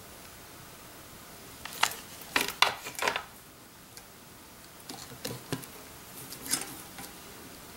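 Sequin braid being handled and pressed onto a mask by hand, giving short crackling clicks and rustles in two bunches, the first about two seconds in and the second about five seconds in.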